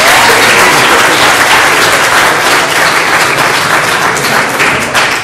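Congregation applauding loudly, a dense patter of many hands clapping that begins to die down near the end.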